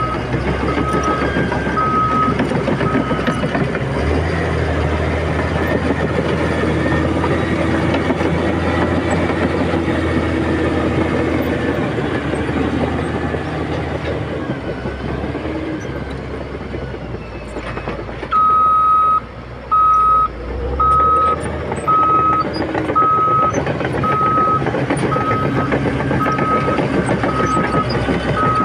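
Heavy earthmoving machinery engine running steadily, with a reversing alarm beeping at an even pace in the first few seconds and again through the last third.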